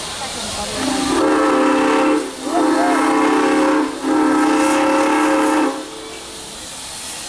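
The steam whistle of Norfolk & Western No. 475, a 4-8-0 steam locomotive, blows three long blasts, each a chord of several notes, over a steady hiss of steam.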